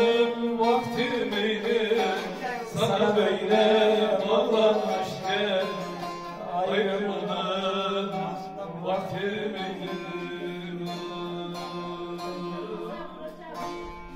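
A man singing a Turkish folk song with long, wavering held notes, accompanied by a bağlama (long-necked saz lute) strummed and plucked. The singing stops about two-thirds of the way in and the bağlama plays on alone, growing quieter.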